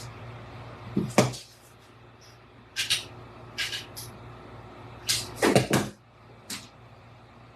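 Knocks and clicks of small objects being handled and set down on a work table during hot-glue crafting, a few separate ones early on and a loudest cluster about five and a half seconds in.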